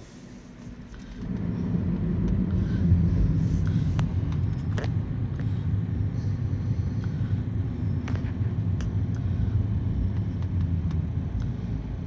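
Car cabin noise: a low engine and road rumble rises about a second in as the car pulls away, then holds steady while it drives.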